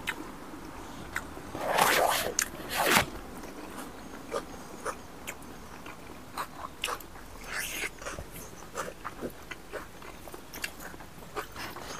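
Close-miked chewing of rice and pork, with many short wet mouth clicks and smacks. Two louder, noisier bursts come about two and three seconds in.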